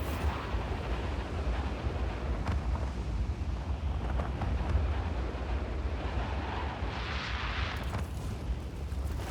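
Continuous deep rumble with a rushing noise over it, and a brief hissing swell about seven seconds in.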